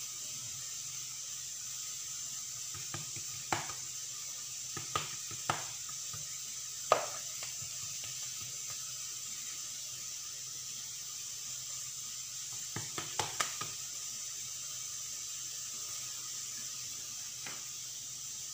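A few scattered light taps and knocks of hands pressing oiled dough rounds flat and setting them down on a granite countertop, the loudest about seven seconds in, over a steady faint hiss.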